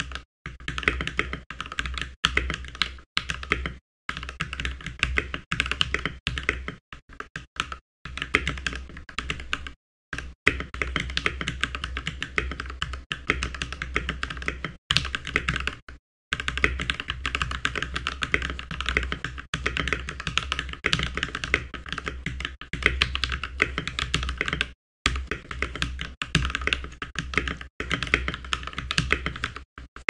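Continuous typing on a 67% mechanical keyboard with lubed and filmed Gateron Brown tactile switches, Akko Wave ASA-profile keycaps and an EVA-foam-dampened case: a dense stream of keystrokes broken by a few short pauses.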